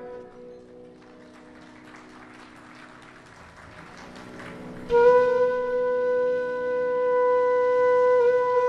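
Background music: a soft, quiet passage, then about five seconds in a single long note enters suddenly and is held steadily.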